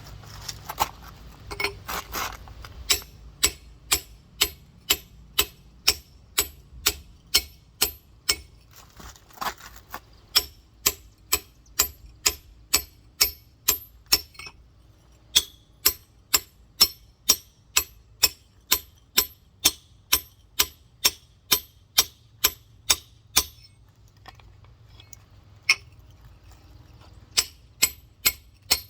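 Rock hammer tapping steadily on a giant geode, about two sharp strikes a second with a few short pauses, shearing the shell along its crack.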